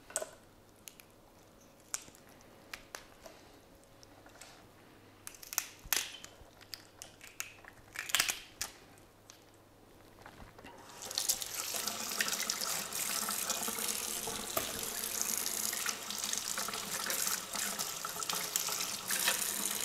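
Blue crabs being pulled apart by hand, with scattered sharp cracks and clicks of shell. About halfway through, a kitchen tap starts running in a steady stream until near the end.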